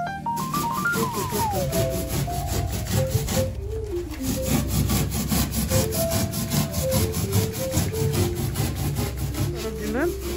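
Hand saw cutting through a polystyrene (styrofoam) insulation board in quick, even back-and-forth strokes, with a brief pause about a third of the way in.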